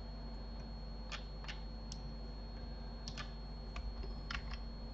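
Faint, scattered clicks of a computer mouse and keyboard, about seven of them, over a steady low electrical hum.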